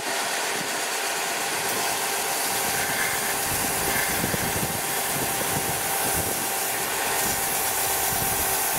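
Bench belt-and-disc sander running steadily with a constant motor hum, while a wooden wall panel is pressed edge-down on the moving belt to sand it down.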